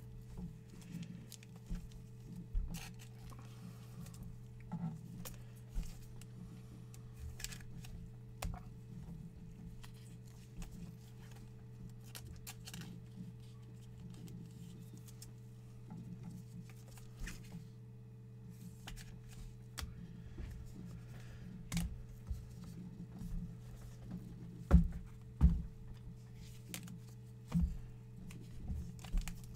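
Trading cards in rigid plastic top loaders being handled and set into plastic display stands: scattered light clicks and taps, with a few louder knocks near the end, over a steady low hum.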